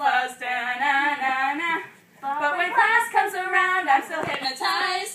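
Young women singing a parody song in phrases of held notes, with a short pause about two seconds in.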